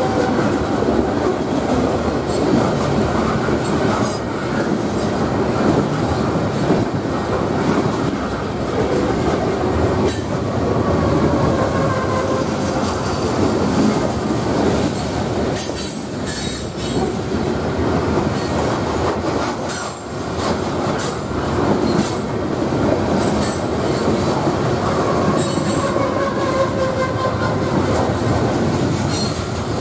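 Covered hopper cars of a long freight grain train rolling past close by: a steady loud rumble and clatter of steel wheels on rail, with thin wheel squeals rising out of it now and then.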